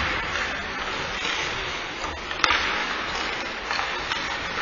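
Ice hockey play: skates scraping and carving on the ice, with a single sharp crack about two and a half seconds in.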